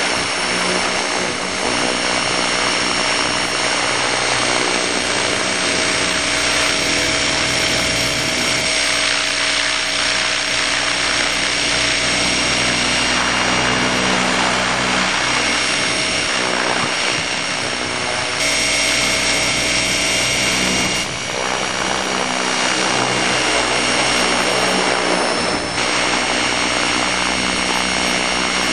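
Electric RC helicopter's motor, gears and rotor running in flight, heard close up from the camera it carries: a steady high whine made of several tones over a rushing haze, its pitch shifting slightly a few times.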